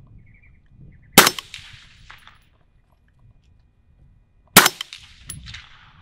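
Two suppressed rifle shots about three and a half seconds apart from a 6.5 Creedmoor fitted with an AB Suppressor Raptor 8 with a 3-inch reflex. Each is a sharp crack with a short echo trailing off.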